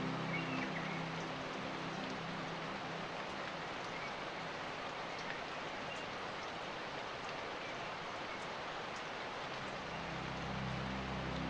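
Steady rain, an even hiss with scattered faint drop ticks. Low background music fades out in the first second and comes back near the end.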